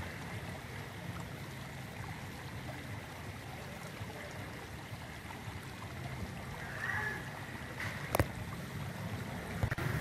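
Steady outdoor background noise, a low rumble under a soft hiss, with two sharp clicks near the end.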